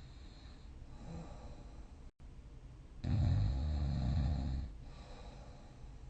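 A sleeping person snoring. There is a softer breath, then a loud, low, rough snore lasting under two seconds about halfway through, then quieter breathing.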